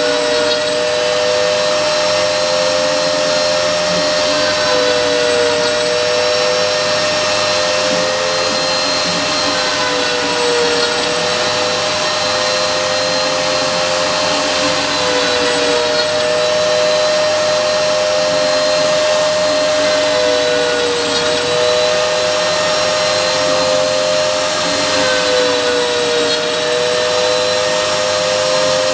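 CNC router spindle milling, a steady high whine over a broad hiss. A second tone just below the whine dips briefly in pitch about every five seconds as the cutter loads.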